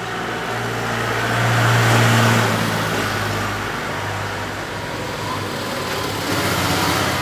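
A motor vehicle's engine running, growing louder to a peak about two seconds in, easing off, then swelling again near the end.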